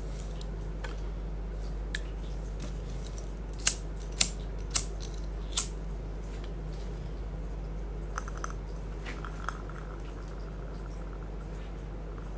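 A tin can handled and turned over in the hands: four sharp clicks about half a second apart, then a few fainter clicks, over a steady low hum.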